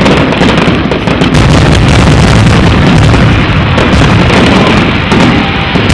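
Fireworks finale barrage: aerial shells bursting in quick succession, a loud, continuous run of overlapping booms and crackles.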